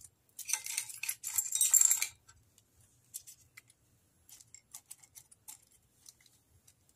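Small trinkets and beads clinking and rattling against a glass jar as a hand presses them in: a dense rattle for about the first two seconds, then scattered light clicks.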